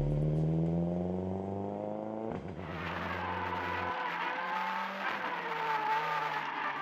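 Ford Focus WRC rally car's turbocharged four-cylinder engine accelerating away, its note rising steadily in pitch. About two seconds in, the sound cuts to the car's own engine heard up close at speed, with wind and road rush and the pitch rising and falling through the corners.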